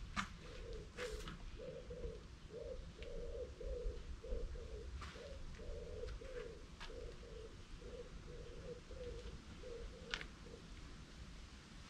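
A dove cooing: a long run of soft, low notes in small groups, with a few brief sharp ticks over it.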